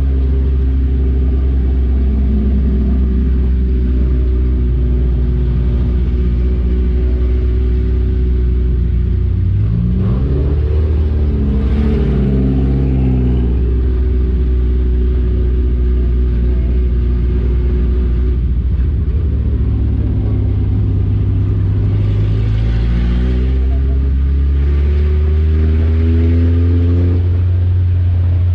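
Four-cylinder race car engine heard from inside the car's cabin, running at low, steady revs. The note swings up and down about ten seconds in and climbs again with throttle from about 22 seconds on.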